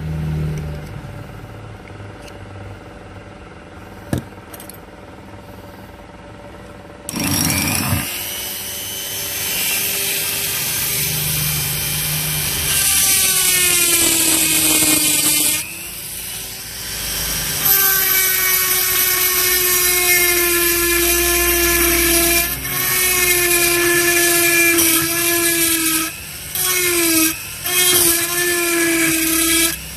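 Small electric power tool drilling out the broken upper hinge of a Zippo lighter case, starting about seven seconds in. Its whine sags in pitch as it bites into the metal and picks up again, and near the end it stops and restarts several times.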